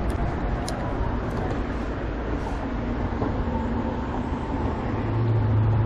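An engine running steadily under a broad rumble, its low hum growing stronger about five seconds in.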